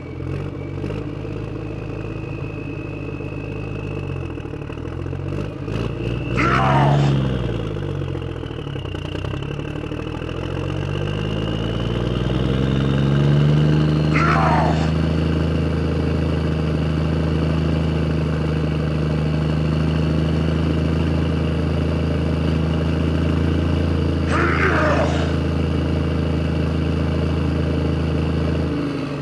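Engine sound of a tractor running. Its pitch dips and rises during the first dozen seconds, then holds even. Three short falling sweeps come roughly eight to ten seconds apart.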